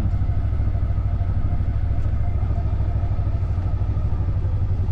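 Vehicle engine running steadily at a constant pace, a low even rumble with a fine rapid pulse.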